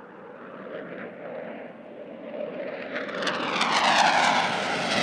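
JF-17 Thunder fighter's Klimov RD-93 turbofan engine, growing steadily louder as the jet closes in and passes, peaking about four seconds in with a falling whine as it goes by.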